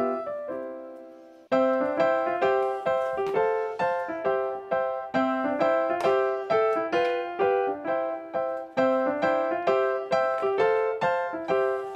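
Background music played on an electric piano: a held chord fades away over the first second and a half, then a light tune of evenly paced notes starts up and runs on.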